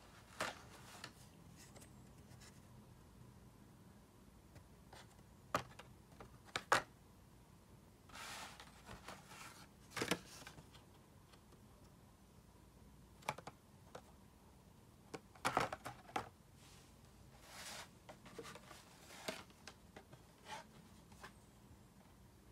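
Hot Wheels cars in card-and-plastic blister packs being handled and set down on a wooden tabletop: scattered sharp taps and clicks with short crinkling rustles of the plastic.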